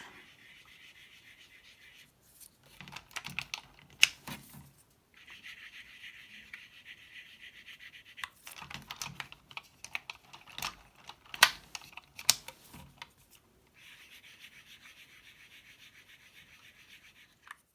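A fine polishing stick rubbing over a keyboard's carbon contact pads in short strokes, giving a light, fine scratching. Twice the rubbing breaks off for a run of sharp clicks and knocks as the keyboard parts are handled.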